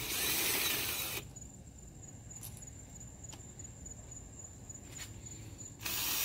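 Cordless power tool running in two short bursts, about a second at the start and again near the end, spinning out the injector hold-down bolts on a 7.3L Powerstroke diesel's cylinder head. A couple of faint clicks fall between the bursts.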